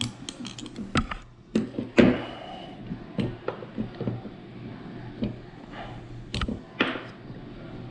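Clicks, knocks and light scrapes of hand tools and parts of an E-Blade paintball marker being handled during disassembly, the loudest knock about two seconds in.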